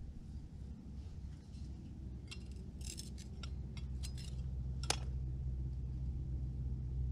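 Loose rock fragments clinking and scraping as they are picked through by hand: a run of light clinks about halfway through, then one sharper click a little later. A low rumble runs underneath and grows louder near the end.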